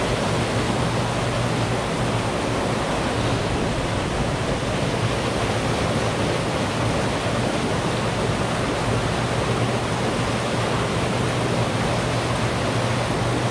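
Rushing, churning water of a hydroelectric dam's generator discharge, loud and unbroken, with a steady low hum beneath it.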